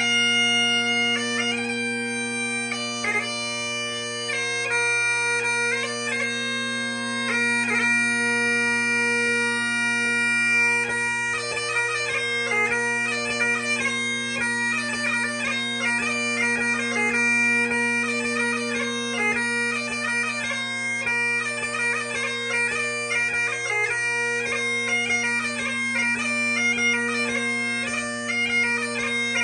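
3D-printed Highland bagpipes playing a tune: the drones hold a steady chord under the chanter melody, which moves into quicker notes about ten seconds in.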